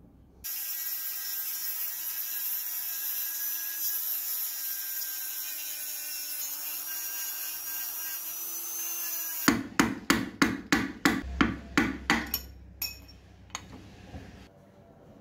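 A small power tool runs steadily on metal for about nine seconds, its pitch rising slightly just before it stops. Then a hammer strikes metal about ten times in quick succession, roughly four blows a second, followed by a few scattered knocks.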